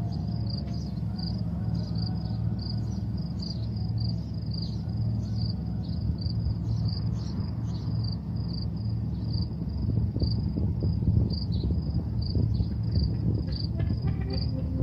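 A cricket chirping steadily, a few high chirps a second, over a low steady hum.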